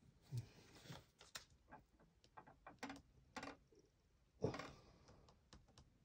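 Faint, scattered clicks and taps of small objects being handled on a table, with a louder knock about four and a half seconds in.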